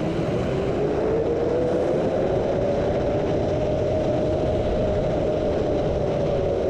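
Zipline trolley pulleys whining along the steel cable, the whine rising in pitch as the rider picks up speed and then holding steady, over wind noise on the microphone.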